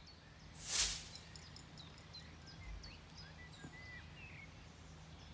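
One loud swish of a golf club swing about a second in, over birds chirping in the background.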